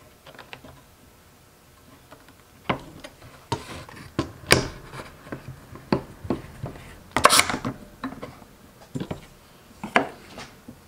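Workbench handling noises as pine boards are lined up against a metal combination square and clamped down with screw clamps: scattered knocks, clacks and short scrapes, the loudest about four and a half and seven seconds in.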